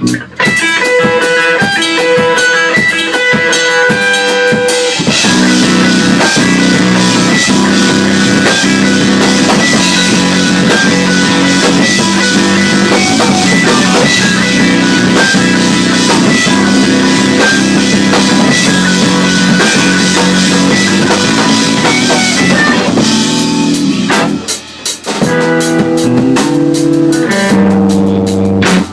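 Rock music: a guitar alone at first, then the full band with drum kit joins about five seconds in and plays steadily, with a brief drop-out near the end.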